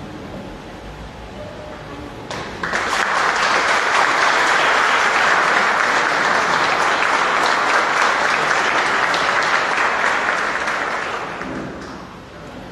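A small audience applauding, starting about two seconds in and dying away near the end.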